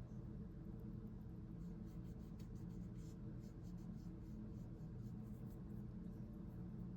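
A hand tool scratching across leather in a run of quick, faint strokes, densest from about two to six seconds in, over a steady low hum.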